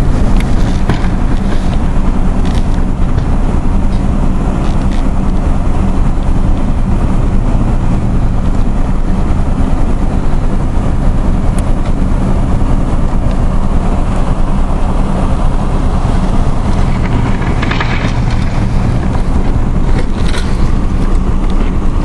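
GMC Sonoma pickup's engine running steadily, heard from inside the cab as the truck drives through deep snow, under a constant rushing noise.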